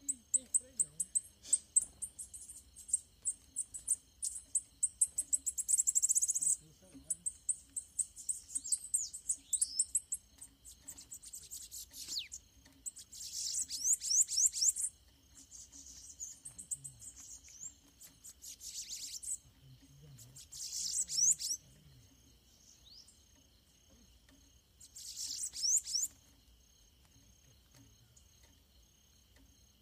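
Bananaquits singing in a territorial dispute: very high, rapid, sputtering trills, nearly continuous for about the first six seconds, then in short bursts every few seconds. A steady, high insect drone runs underneath.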